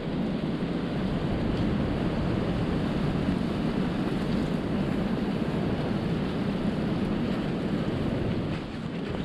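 Blizzard wind blowing across the microphone: a steady, low rushing with no breaks.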